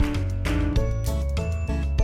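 Background music with a steady beat and a strong bass.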